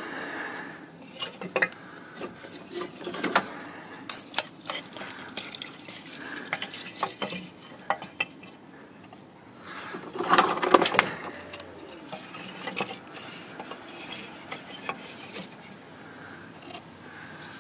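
Pieces of kindling wood being placed and dropped into a steam boiler's firebox, knocking and clattering against each other and the metal walls. The knocks come irregularly, busiest and loudest about ten to eleven seconds in.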